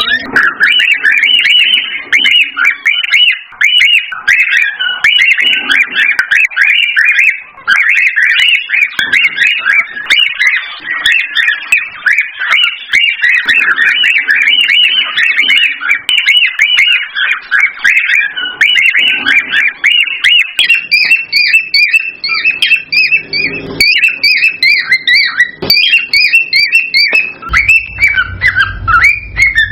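Cockatiels whistling and chattering without a break, a fast run of short whistled notes rising and falling. This is the mating song used to stimulate breeding pairs. A low hum comes in near the end.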